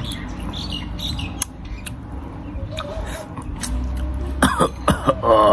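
Wet mouth sounds of a person eating a ripe mango by hand, sucking the flesh off the peel and seed: scattered smacks and slurps over a low steady background rumble. Near the end comes a short vocal sound.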